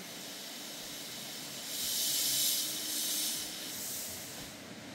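Small narrow-gauge steam locomotive letting steam hiss from its open cylinder drain cocks: a steady hiss that swells into two loud bursts about two and three seconds in, with a weaker one after.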